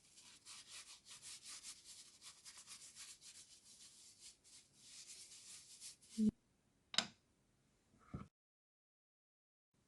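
Oil being wiped around a cooking pan in quick rubbing strokes for about six seconds, followed by a knock and two sharp clicks. The sound stops abruptly near the end.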